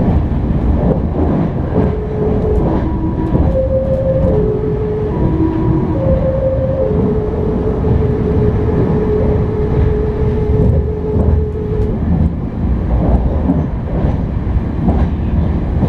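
A Meitetsu limited express train's music horn plays its melody of stepped notes and ends on one long held note that stops about twelve seconds in. The train's steady running rumble continues underneath and afterwards.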